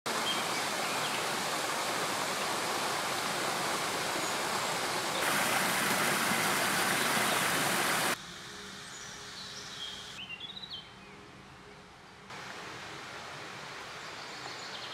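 Steady rushing of a forest stream and small waterfall, which steps louder about a third of the way in. About halfway through it drops away to quiet woodland with a few high bird chirps, and a softer steady rush returns near the end.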